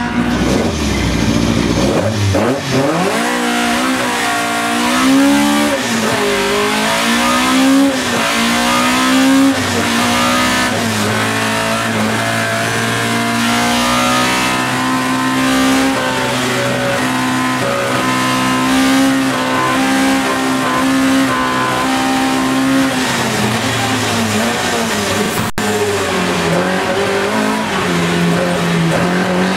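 A Group H Opel Kadett C race car's 2-litre 16-valve four-cylinder engine driven hard, heard mostly from inside the cabin. The revs rise and drop through gear changes for the first several seconds, then hold high and steady for over ten seconds, and dip and climb again near the end.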